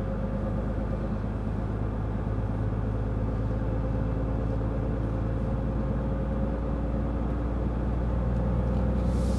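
Scania truck's diesel engine running steadily under way, heard inside the cab as an even drone with road noise, growing slightly louder near the end.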